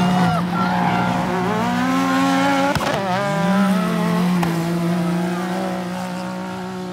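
Several side-by-side UTV engines racing at full throttle, their notes rising and falling as the drivers work the throttle. There is a sharp crack about three seconds in, and the sound fades toward the end.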